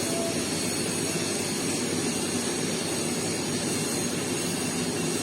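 Steady machine rumble running without a break, with a fainter hiss above it.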